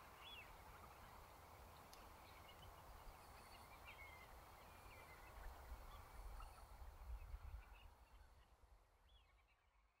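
Faint, distant calls of a flock of wintering waders and wildfowl on an estuary mudflat: scattered short chirps and whistles over a low rumble, fading out near the end.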